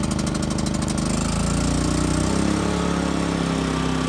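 Champion 3400 dual fuel inverter generator's single-cylinder engine running on propane just after a choked cold start, its pitch shifting unevenly at first and then settling to a steady run about two seconds in.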